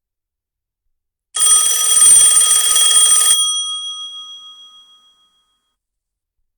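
OnePlus 7T stock ringtone: a single burst of fast ringing with several steady high tones, starting after a short silence, lasting about two seconds, then ringing out and fading away.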